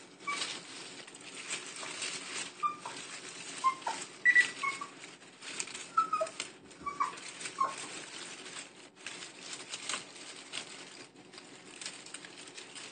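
Dry leaves and fleece bedding rustling and crackling as a hand wrestles with a young squirrel, with repeated short high squeaks scattered through.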